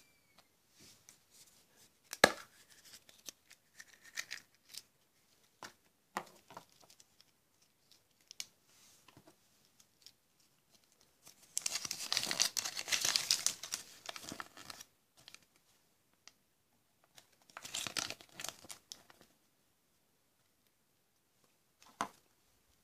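Small printed wrapper from a Kinder Surprise toy torn open and crinkled by hand: a long tearing stretch around the middle and a shorter one a few seconds later. Before that, scattered clicks of small plastic pieces being handled, one louder click about two seconds in.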